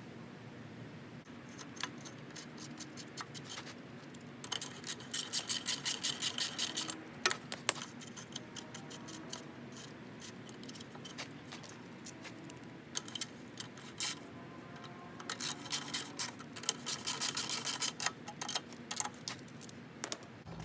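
Ratchet wrench clicking fast while bolts on the mower's carburetor and air-filter housing are tightened, in two runs of a few seconds each.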